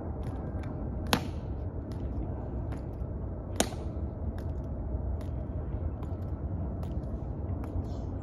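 Footsteps of a Tomb Guard's metal-tapped shoes clicking on the marble plaza, a steady run of short clicks, with two much louder sharp clicks about a second in and again about three and a half seconds in. A low steady rumble lies underneath.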